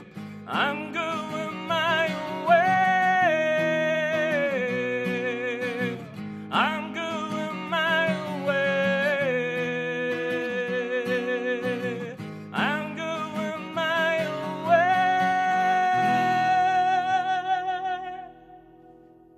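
Acoustic guitar strumming under a man singing long held vocal lines: three phrases, each opening with a quick upward swoop into a sustained note. On the last held note the voice and guitar die away near the end.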